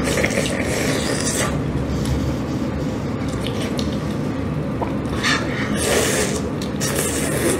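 Wet slurping and sucking mouth sounds of someone eating soft, fatty steamed fish from her fingers, in several short bursts over a steady low background noise.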